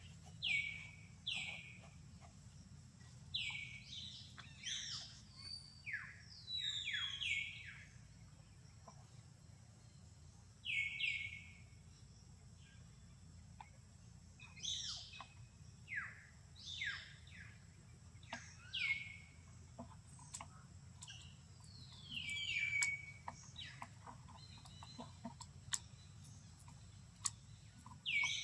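Birds calling: short chirps that slide down in pitch, repeated in scattered groups, over a faint steady low hum.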